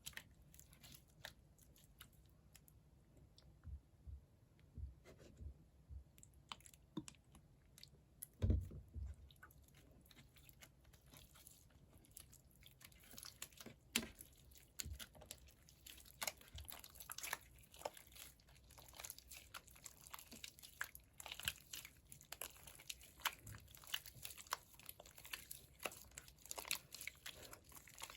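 Hands squishing and stretching jiggly slime mixed with clay, making faint scattered crackles and sticky clicks that get busier in the second half, with one louder thump about eight seconds in.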